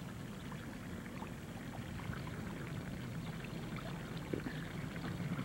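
Steady low hum and hiss of background noise, with a few faint small ticks and rustles and no distinct event.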